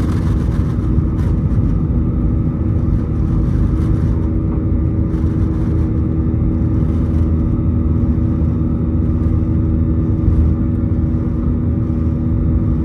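Airbus A320-200's twin jet engines at takeoff thrust during liftoff and initial climb, heard inside the cabin over the wing: a loud, steady low rumble with a steady hum.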